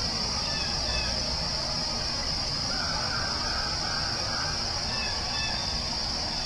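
Forest ambience: a steady high-pitched insect chorus over a low, even rumble, with a few faint bird chirps, the first about half a second in and more about five seconds in.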